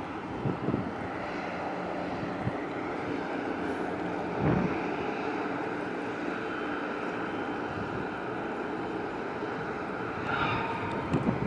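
Steady low hum of a boat's engine, with wind buffeting the microphone near the start and again about four seconds in, and a brief higher tone about ten seconds in.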